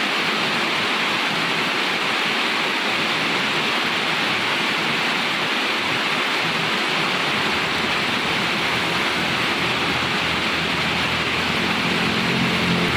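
Steady hiss of rain falling by a highway. Partway through, the low rumble of an approaching motor vehicle builds under it, and near the end its engine hum joins in as it draws close.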